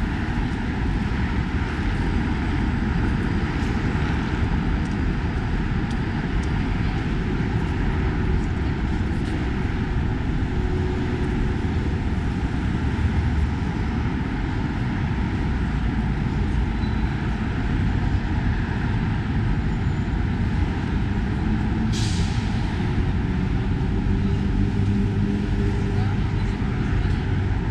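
Street traffic on a busy city avenue: a steady rumble of passing vehicles with the voices of passers-by mixed in. A short, sharp hiss cuts in about three-quarters of the way through.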